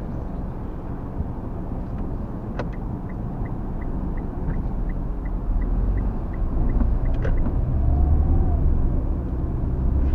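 Road and wind noise inside a moving Mitsubishi Xpander's cabin: a steady low rumble that grows louder near the end. Through the middle, a run of quick even ticks, about three a second, sounds over it.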